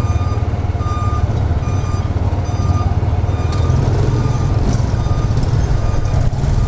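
Yamaha NMAX scooter riding slowly, a steady low rumble. Over it a vehicle's reversing alarm beeps about twice a second, fading out about halfway through.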